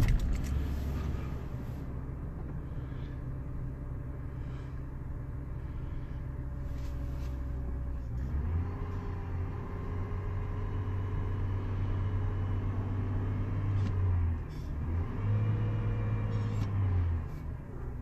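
2003 GMC Envoy's 4.2-litre straight-six engine running just after starting, at a fast idle. Its speed steps up about eight seconds in, dips briefly, rises again and drops back near the end. This is the first run after a new coil pack and spark plugs, and the scan tool counts a few misfires that the mechanic puts down to oil in the cylinders burning off.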